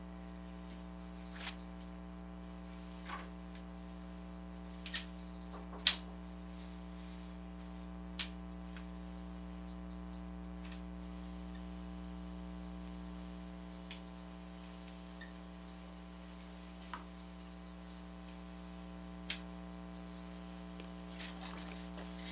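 Steady electrical mains hum from the sewer inspection camera's recording feed, with a few light clicks and ticks scattered through it, the sharpest about six seconds in.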